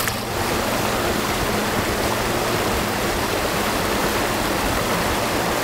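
Shallow, rocky river rushing steadily over stones.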